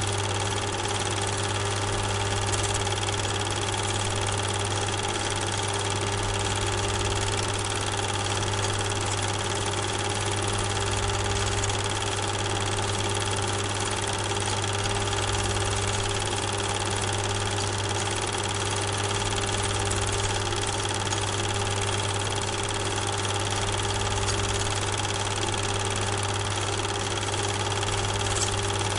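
Steady machine hum over a constant hiss. It runs unchanged and does not follow the trains on screen.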